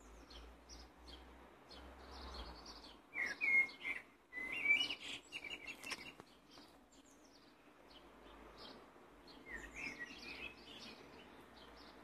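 Eurasian blackbird singing: two warbled phrases a few seconds in, each sliding from mellow lower notes up into high squeaky twitters, and a shorter phrase near the end, with faint short high chirps in between.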